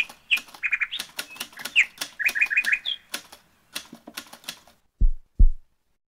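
Outro sound effects: rapid typewriter key clacks mixed with short high chirps, some in quick runs of three or four. Near the end come two deep thumps about half a second apart.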